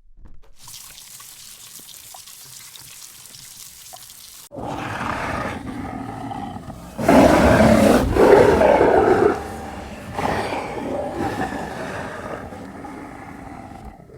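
A large animal calling in loud, rough roar-like bursts, starting about four seconds in after faint background hiss, loudest around the middle and tailing off toward the end.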